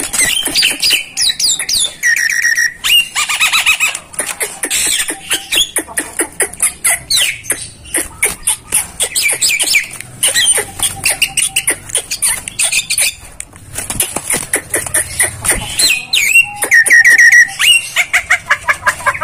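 Caged Javan myna (jalak kebo) chattering without a break: a fast run of clicks, harsh squawks and short whistles that rise and fall, with a quick series of repeated notes near the end. This is the bird's calling in breeding mood.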